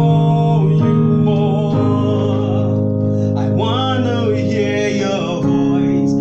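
A man singing a gospel worship song, accompanying himself with held chords on a portable electronic keyboard. The chords change about a second in, near two seconds, and again about five and a half seconds in.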